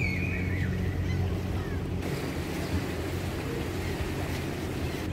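Sailing catamaran's inboard diesel engine running steadily as the boat motors through a narrow channel, with wind and water noise over it. A few short high chirps sound in the first second or two.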